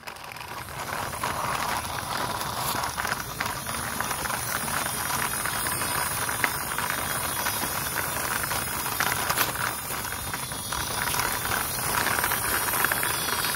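Plastic toy army jeep rolling over sandy ground: a steady hissing, rattling noise from its wheels and gears on the sand, with a few small clicks.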